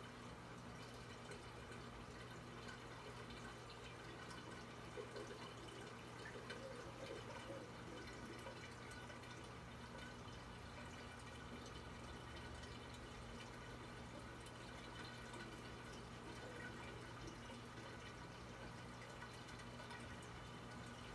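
Reef aquarium running: faint, steady trickling and dripping of circulating water over a low, steady hum.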